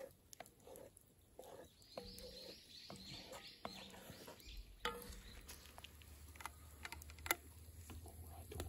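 Faint scattered taps and scrapes of a wooden spatula stirring thick curry in a cast-iron Dutch oven, with a bird calling briefly about two seconds in.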